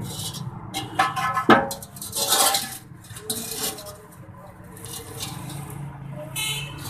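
A few metallic clinks and knocks over a steady low hum, with a ringing clink near the end, as old engine oil drains from the Mitsubishi i's oil pan into a drain tub.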